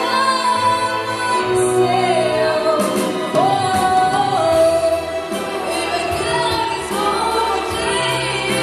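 A female solo vocalist singing a pop song over a backing track, holding long sung notes.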